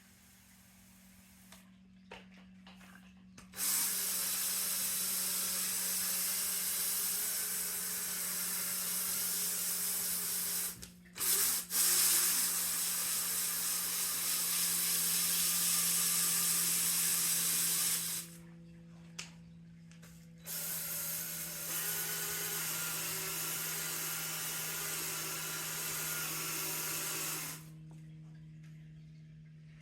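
Power drill spinning a scrub brush against a surface in three runs of several seconds each, each starting and stopping abruptly: a motor whine under loud bristle-scrubbing hiss.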